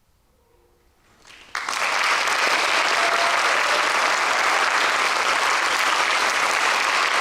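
Near silence, then audience applause breaks out suddenly about a second and a half in and carries on steadily, filling the hall.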